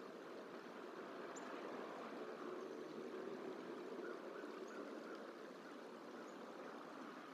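Faint, steady outdoor background hiss like running water or distant traffic, with three brief, very high bird chirps.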